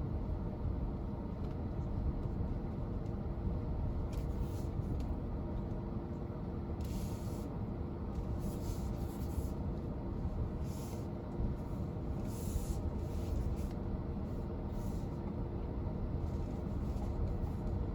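MG HS hybrid SUV driving slowly off-road: a steady low rumble of tyres and running gear, with short hissing bursts now and then.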